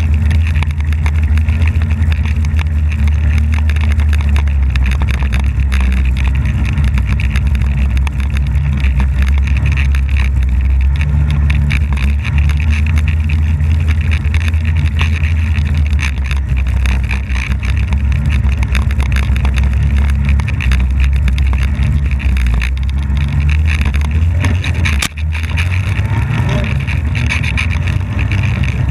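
Polaris snowmobile engine running steadily while the sled is ridden, a loud, low, even drone with a hiss above it.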